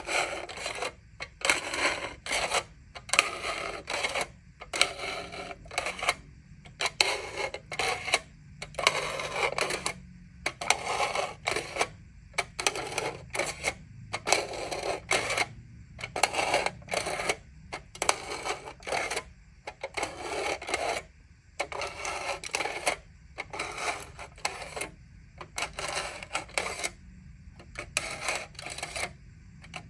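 Aluminium foil being crinkled and crumpled by hand, in short, irregular crackling bursts several times a second, with brief pauses between handfuls.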